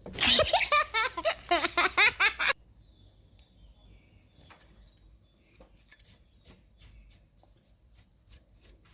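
A voice-like sound with a wavering pitch for the first two and a half seconds. After that, a brush rubs shoe polish into a steering wheel in quick, even strokes, about two or three a second.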